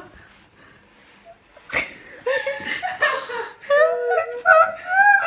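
Women laughing in high voices, giggling and shrieking with laughter, starting about two seconds in just after a sharp click.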